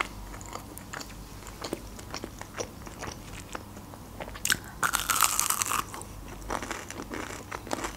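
Close-miked eating sounds: soft chewing and mouth clicks, then about four and a half seconds in a loud crunchy bite into a breaded fried cheese bite, followed by more chewing.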